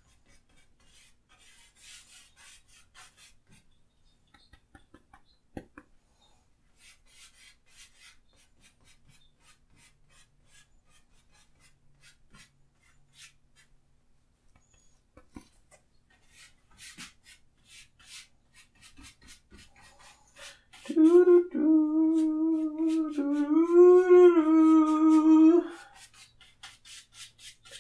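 Large bristle brush scrubbing and dabbing oil paint onto a canvas in quick, short, faint strokes. About three-quarters of the way in, a man hums one long note that lifts slightly in the middle and lasts about five seconds.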